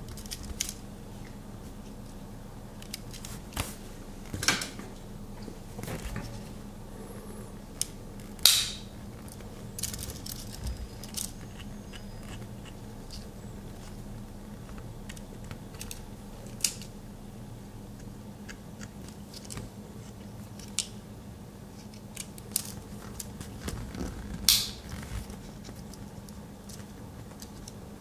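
Victorinox Explorer Swiss Army knife being handled, its blades and tools clicking and snapping as they are opened and closed against their backsprings. A dozen or so sharp clicks come at irregular intervals, the loudest about eight seconds in and again near the end, over a steady low hum.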